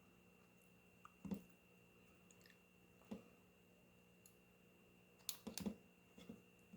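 A few small, sharp clicks, irregular and a second or two apart with a close pair past the middle, over a faint steady hum: the select button of a servo tester being pressed to cycle through its manual, neutral and automatic modes.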